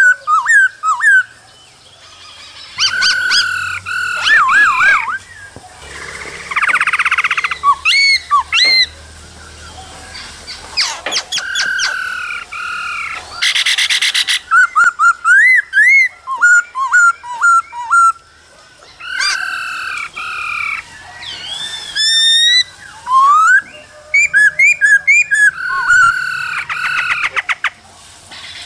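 Black-throated laughingthrush singing a loud, varied song: clear whistled phrases, rising and falling glides, rapid runs of repeated notes, and a few harsh chattering bursts.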